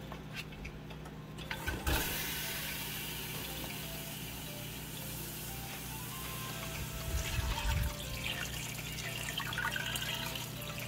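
Tap water running steadily into a pressure cooker over chunks of beef, starting suddenly about two seconds in. A few dull knocks against the pot come partway through.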